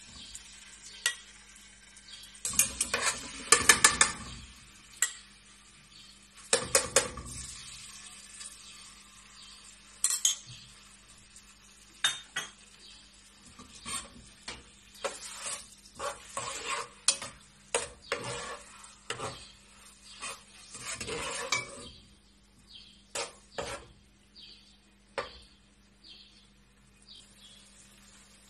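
A wooden spoon stirring tomato paste frying in oil in an aluminium pot, scraping and knocking against the metal sides in irregular strokes over a light sizzle. Denser runs of scraping come about two and a half seconds in, near seven seconds and near twenty-one seconds.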